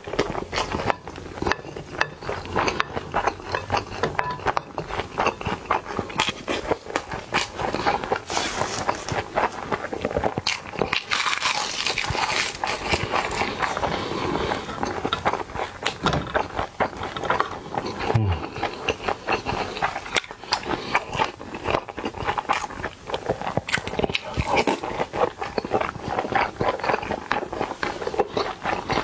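Close-miked eating sounds: wet chewing and lip-smacking clicks on a mouthful of Korean bibimbap (mixed rice and vegetables), steady and continuous, with a louder breathy hiss near the middle.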